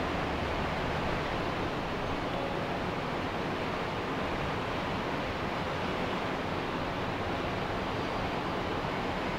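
Ocean waves washing on a beach: a steady, even rush of surf with no single wave standing out.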